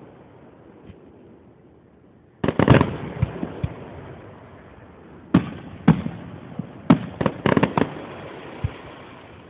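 Fireworks display: aerial shells bursting, first a rapid cluster of bangs about two and a half seconds in, then two single bangs and another quick cluster of bangs near the end, each trailing off in a rumbling echo.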